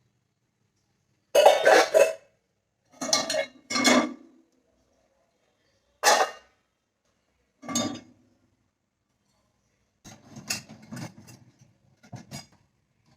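Washed kitchen vessels clattering and clinking as they are handled and taken out of the dishwasher racks, in about seven short separate knocks and rattles, some ringing briefly.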